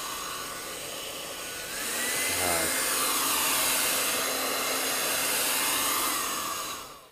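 Andis Pro Dry hair dryer blowing on low speed, switched to high about two seconds in: its fan whine steps up in pitch and the airflow gets louder. Near the end the whine falls and the dryer winds down to a stop as it is switched off.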